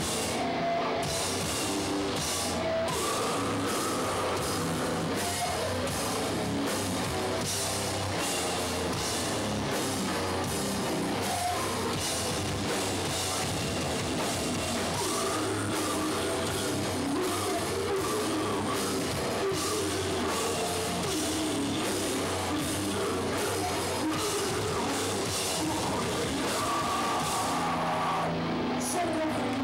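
A live hardcore punk band playing loud, distorted rock: driving drum kit with crashing cymbals, guitar and bass, and shouted vocals at times.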